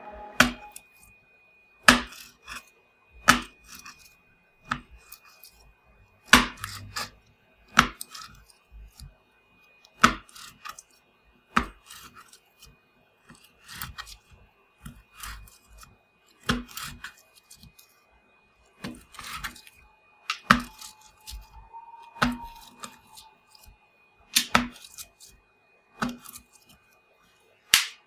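A kitchen knife slicing repeatedly through a thick orange slime shaped like a carrot. Each cut makes a sharp tap, about one every one and a half seconds.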